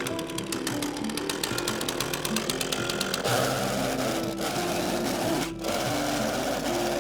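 A power tool such as a brush cutter running, with a fast, even clatter for about the first three seconds and then a steady whirring noise. Background music plays underneath.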